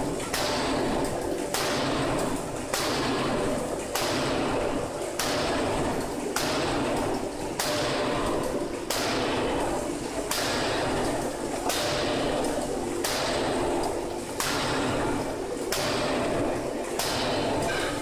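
C61Y fully hydraulic open-die forging hammer striking a red-hot steel billet in a steady rhythm, about one blow every 1.2 seconds, each a sharp strike with a short ringing tail.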